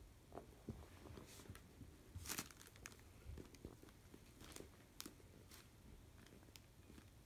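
Faint crinkling and rustling of a plastic bag with scattered soft taps, as a cat brushes and scrambles against it. The loudest rustle comes about two and a half seconds in.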